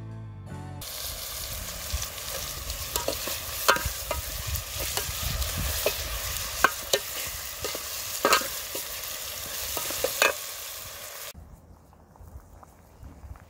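Sliced onions and dried red chillies frying in oil in an aluminium pot: a steady sizzle with sharp clicks of a metal ladle stirring and scraping the pot. Near the end the sizzle cuts off, leaving only faint stirring.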